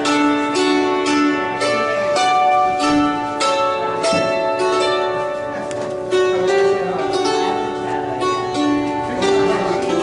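Hammered dulcimer played with two small hammers: a steady run of struck notes, each ringing on and overlapping the next.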